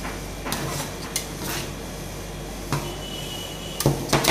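Two metal spatulas scraping and tapping on a stainless steel ice-cream roll cold plate as they work the ice cream, with a few separate clinks. Near the end a fast run of chopping strikes begins, the spatula edges hitting the plate several times a second.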